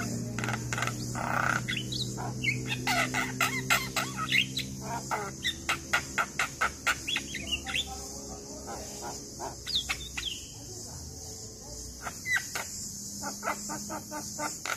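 Javan myna singing: fast runs of harsh clicks and chattering notes mixed with short whistles. The song thins out about halfway through and picks up again near the end.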